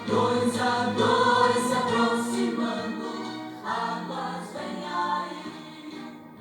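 Music with a choir singing, played from a car radio head unit through two loudspeaker boxes. The song fades down toward the end, as the track finishes.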